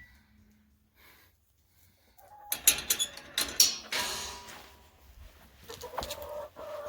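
Hens in a coop: a cluster of sharp knocks and scratchy rustling starting about two and a half seconds in and lasting about a second and a half, then a few soft low clucks near the end.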